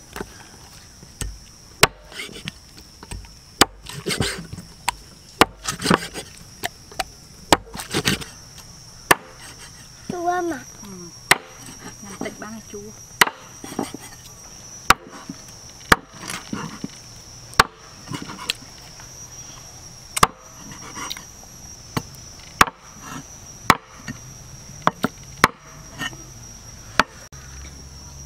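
A cleaver chopping snake meat on a round wooden chopping block: sharp chops at an uneven pace, roughly one every second or two. A steady high insect drone runs behind it.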